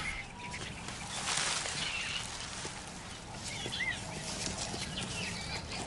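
Forest ambience: birds chirping and calling, with soft rustling of leaves and undergrowth. There is a short rising-and-falling chirp about four seconds in.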